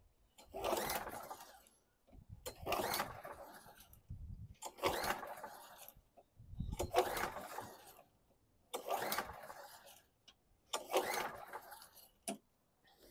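1998 Craftsman push mower's small engine being cranked with the recoil pull-starter, six pulls about two seconds apart, turning over but not catching.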